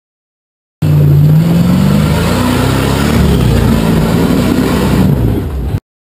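Rock crawler buggy's engine revving hard under load as it climbs a rock ledge with wheelspin, its pitch rising and then wavering. The sound starts suddenly about a second in and cuts off abruptly just before the end.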